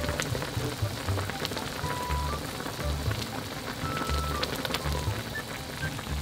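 Spicy ramyun broth boiling in a pot as the instant noodles cook: a dense crackle of popping bubbles, over light background music with a steady bass beat.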